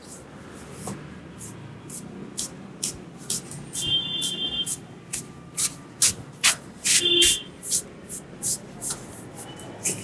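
A barber's hands slapping, tapping and snapping during an Indian head and back massage (champi): a quick, irregular run of crisp claps that comes thicker about two seconds in. Twice a short high chirp sounds among them.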